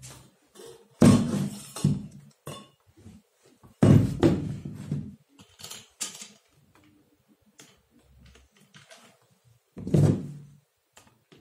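Parts of an 18-inch Asahi stand fan knocked together during assembly: the hollow plastic base and blue metal pole thud three times, about a second in, at four seconds and near the end, with small clicks and rattles between.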